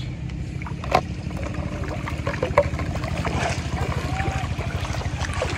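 A small engine running steadily with a low, even throb, with water splashing lightly and a few sharp knocks over it.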